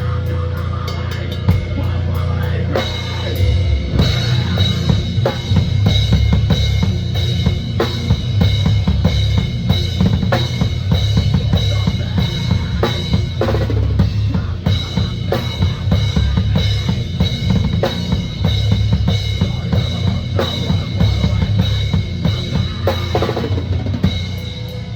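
Drum kit played hard and fast: a dense run of bass drum strokes under snare hits and cymbals. It thickens a few seconds in, breaks off briefly about halfway, and eases near the end.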